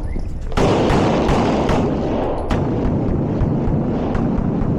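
Pistol shots: a handful of sharp cracks, the loudest about half a second in and a few more spread over the next two seconds, over a steady loud rushing noise.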